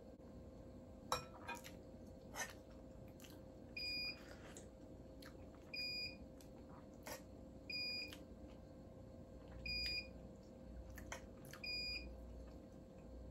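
A short, high electronic beep repeating about every two seconds, five times, from an alarm or appliance indoors. Between the beeps a spoon clinks sharply against a plate and a serving pot a few times, over a faint steady hum.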